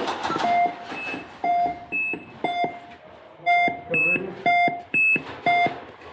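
Electronic airsoft bomb prop beeping: a short pitched beep about once a second, six times.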